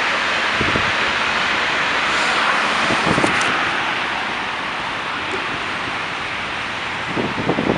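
Steady rush of city traffic passing on a snowy road, with gusts of wind buffeting the microphone now and then, most strongly near the end.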